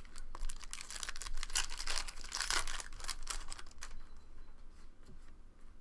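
Foil wrapper of a trading card pack crinkling and tearing as it is opened. A dense run of crackles, loudest in the middle, dies down after about three and a half seconds.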